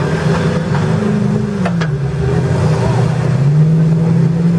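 A trial 4x4's engine being revved, its pitch falling away around the middle and climbing again near the end. There is one sharp knock about a second and a half in.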